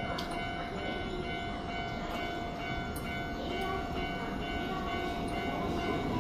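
A Hanshin Railway train passing over a level crossing, with the crossing alarm sounding a steady high tone over the noise of the train.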